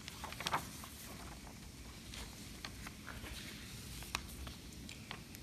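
A picture-book page being turned by hand: a short cluster of paper crackles about half a second in, then a few faint ticks of paper handling.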